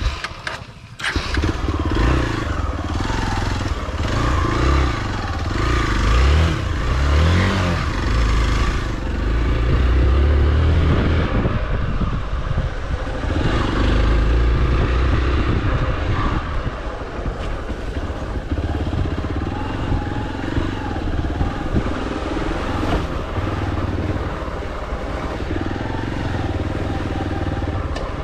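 Hero XPulse 200 motorcycle engine pulling away about a second in, then running and revving up and down, its pitch rising and falling with the throttle, while the bike rides a rough dirt trail.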